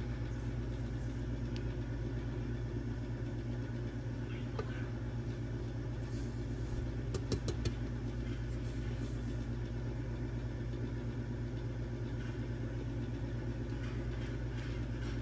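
A steady low machine hum, with a few short clicks about seven seconds in.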